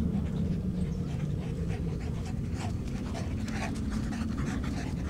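Dog panting in a quick series of short breaths, over a steady low rumble.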